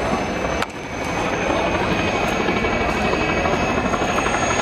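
Helicopter flying low overhead with a water bucket slung beneath it, a steady loud rotor and engine noise. The noise drops sharply just under a second in and then builds back.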